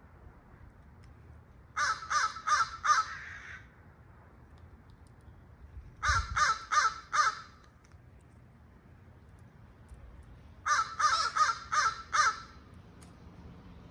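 Crow cawing in three bursts of four or five quick, loud caws each, a few seconds apart: territorial calling over turf.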